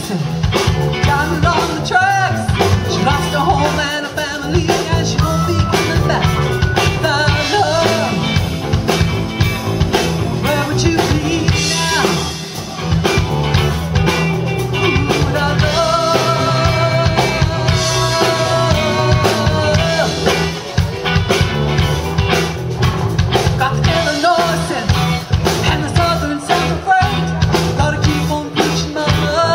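Live rock band with electric guitar, keyboards and drum kit playing an instrumental passage over a steady drum beat.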